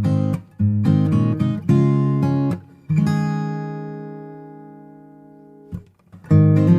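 Background music: acoustic guitar strummed in chords, one long chord left to ring and fade out about halfway through, then strumming again near the end.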